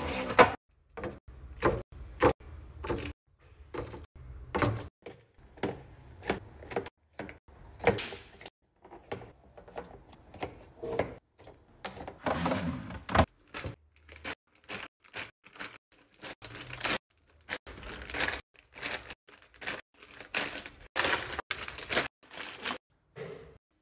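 Packaged snacks and drinks being set into clear plastic bins and a woven basket: many quick clicks and taps of cartons and plastic cups against the acrylic, with crinkly rustling of plastic snack bags.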